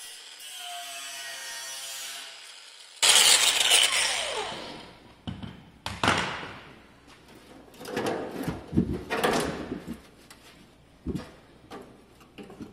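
A sudden loud clattering crash about three seconds in, ringing down over a couple of seconds, then a run of separate knocks and clanks as tools and metal parts are handled and set down.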